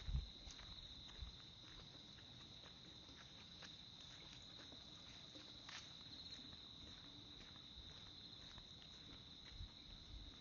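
Insects calling in a steady, high, continuous trill, with a few soft, low thumps of footsteps near the start and again near the end.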